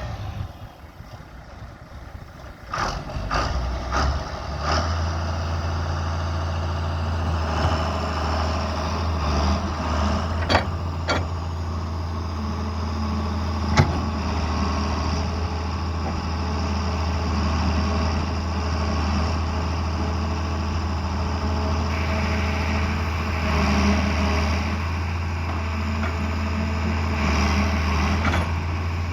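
John Deere 690B excavator's diesel engine running, settling into a steady low drone about five seconds in, with a few sharp metallic knocks over it.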